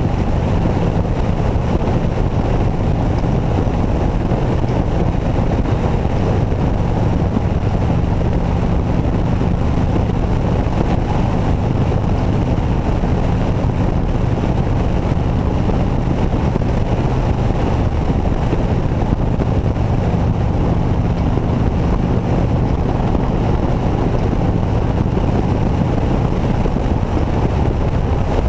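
Touring motorcycle engine running steadily at cruising speed, with wind noise buffeting the microphone.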